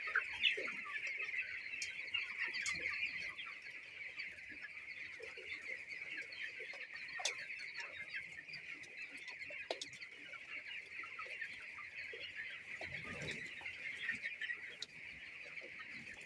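A flock of young chicks peeping continuously, a dense chorus of many overlapping high chirps.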